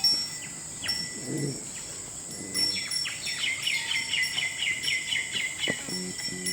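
A bird singing a rapid series of short, falling notes, about four a second, for roughly three seconds in the middle.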